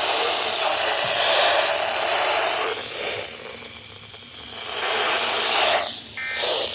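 Weather radio receiver hissing with static between broadcasts. The hiss fades down in the middle and swells back, drops out briefly near the end, then a couple of short electronic tones sound.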